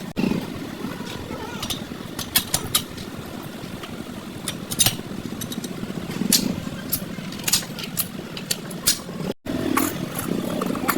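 Scattered sharp clicks and knocks over a steady low engine-like hum, with a brief break about nine seconds in.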